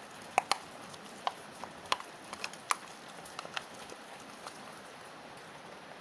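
Slime mixture of glue, powder and soap being stirred as it clumps: irregular wet clicks and taps, stopping about four seconds in.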